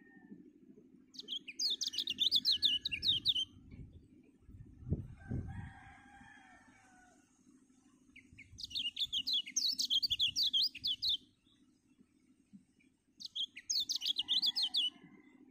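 White-eye (kecial) singing in three bouts of rapid, high chattering trills, a lure song (pancingan) used to provoke other kecial into singing. Between the first two bouts a fainter, lower call, likely a rooster crowing, is heard with a thud.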